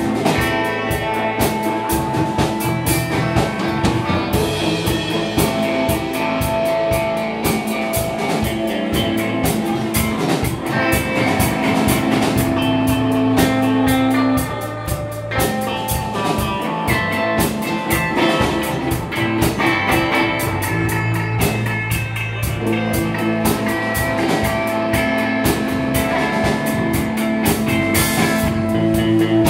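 Live rock band playing: guitar over a steady drum-kit beat.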